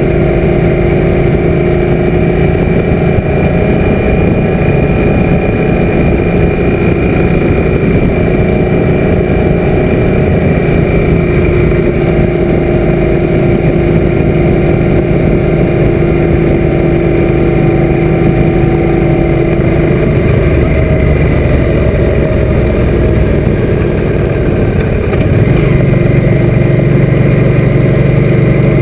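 Suzuki M800 cruiser's V-twin engine running under way at a steady road speed. The engine note shifts lower about twenty seconds in, then steps up in pitch and gets louder a few seconds before the end, as the bike pulls harder.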